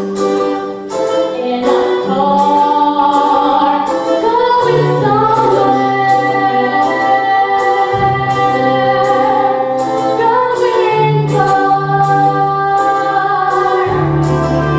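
A teenage girl's solo singing voice holding long, wavering notes in a musical-theatre song, over an accompaniment with bass notes and a steady beat of about two ticks a second.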